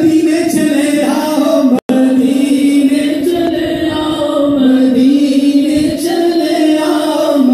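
Unaccompanied devotional singing, a naat, in long held notes that glide slowly up and down. The sound cuts out for an instant about two seconds in.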